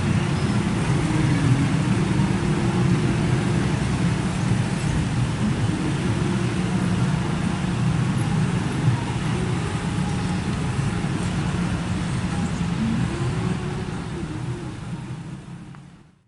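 A diesel train running, with a steady low engine sound under a rushing noise. It fades away in the last few seconds.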